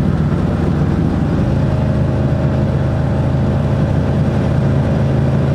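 Motor vehicle engine running steadily with a low drone.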